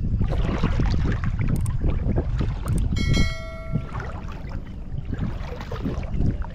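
Water sloshing and splashing as a person wades through knee-deep shallows, with wind rumbling on the microphone. About three seconds in, a short electronic chime from a subscribe-button animation sounds over it.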